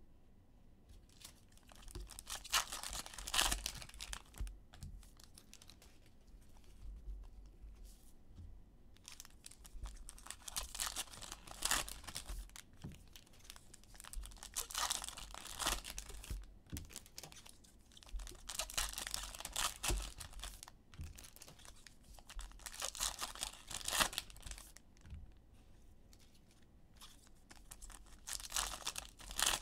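Foil trading-card packs being torn open and crinkled by hand, in about six bursts of tearing and crackling a few seconds apart.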